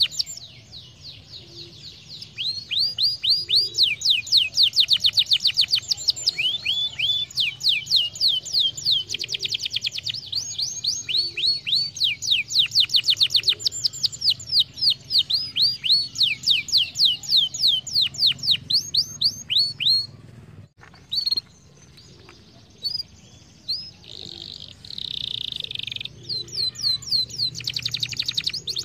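Domestic canary singing: long, rapid trills of repeated down-slurred notes, the trill speed changing from phrase to phrase. About two-thirds of the way in the song breaks off. A short, rougher rolling phrase follows, and then fast trills start again near the end.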